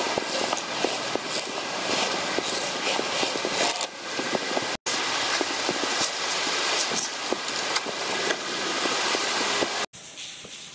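Close rustling and scraping of a person crawling through a narrow graffiti-covered tunnel, with clothing and hands rubbing near the microphone. The sound cuts out for a moment about five seconds in and again near the end.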